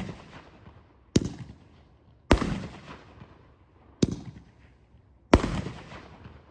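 Winda Goldzilla Thrilla firework cake firing shots that burst overhead: four sharp, loud bangs at uneven gaps of one to two seconds, each trailing off over about a second.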